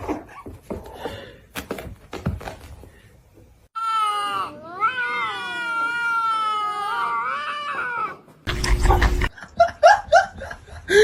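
A cat yowling: one long drawn-out wavering call lasting about four seconds, starting a few seconds in after some light knocks. Near the end comes a brief loud burst of noise, then several short, quick calls.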